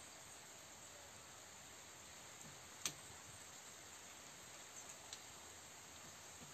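Near silence: a steady faint hiss of room tone, broken by one sharp click about three seconds in and a couple of fainter ticks a couple of seconds later.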